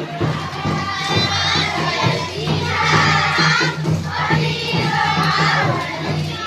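Music with a steady beat, mixed with a crowd of children's voices.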